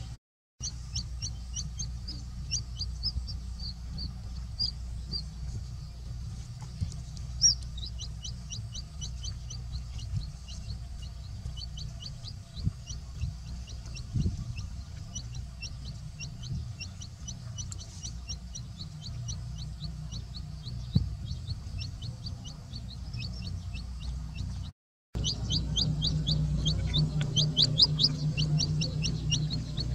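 Chicken chick peeping, a rapid run of short high calls several a second that goes on without a pause and grows louder in the last few seconds. The sound cuts out for a moment twice.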